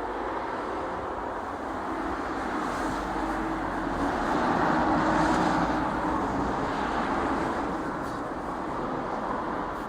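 A road vehicle passing by: a steady rush of noise that swells to its loudest about halfway through and then fades.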